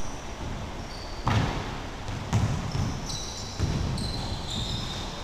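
Basketball bouncing on a hardwood gym floor, a few dull thuds about a second apart, with short high sneaker squeaks in between.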